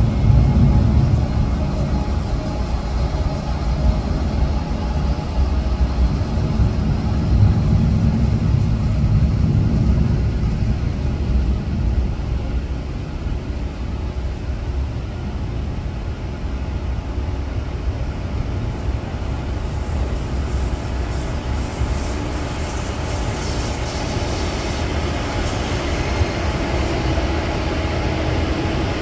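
Korail Mugunghwa-ho passenger train running through a station: a steady low rumble that eases a little about halfway through.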